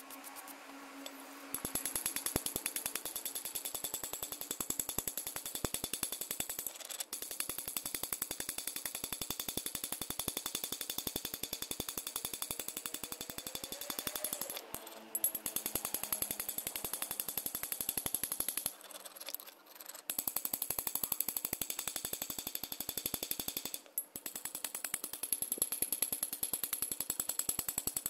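A small power tool running against metal, with a rapid, even clicking over a steady high whine. It starts a little after the beginning and stops briefly three times in the second half.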